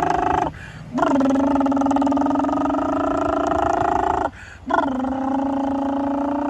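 A toddler making a vroom-like engine noise with his voice while pretending to drive, in long held notes with two short breaks for breath, about half a second and about four seconds in.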